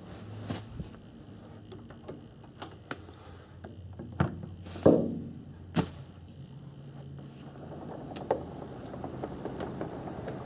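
Handling noise from a handheld camera being moved about: a scatter of knocks and clicks, with three louder thumps about four to six seconds in.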